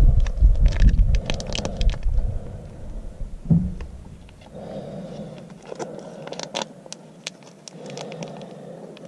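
Plastic exploding-target containers handled while the aluminum-powder catalyst is poured into the ammonium nitrate: scattered clicks and scrapes of plastic. A low rumble under them fades out about four seconds in.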